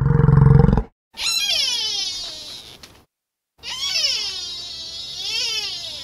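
Animal calls: a short, deep, loud grunt, then two long high-pitched cries that fall and waver in pitch.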